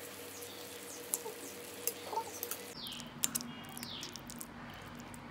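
Small metal utensils stirring and tossing noodles in a tiny iron kadai, with light scattered clicks of metal on the pan and a soft sizzle that stops about halfway. In the second half, a few short falling chirps, most likely birds in the background.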